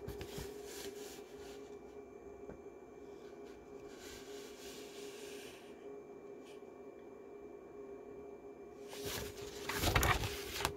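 Pages of a picture book being turned and handled: paper rustling, loudest in a burst near the end.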